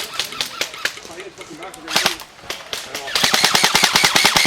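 Airsoft electric M60 machine gun firing a long full-auto burst of about a dozen shots a second, starting about three seconds in. Before it, scattered single shots and faint distant voices.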